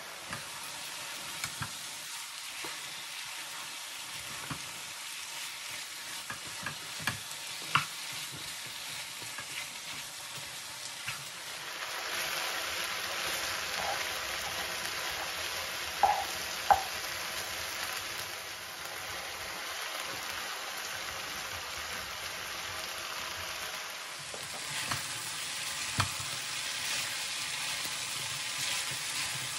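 Stir-fry of vegetables, smoked turkey and brown rice sizzling in a non-stick frying pan, with a spatula stirring and a few sharp clicks as it knocks the pan. The sizzle gets louder about 12 seconds in.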